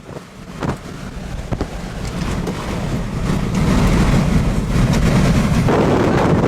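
Strong wind buffeting the microphone as a low, rumbling roar. It starts quieter and grows louder over the first few seconds.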